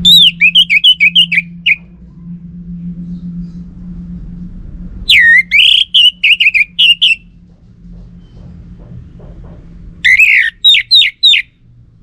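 Orange-headed thrush singing: three short phrases of quick, loud whistled notes, one at the start, one about five seconds in and one about ten seconds in, each lasting one to two seconds.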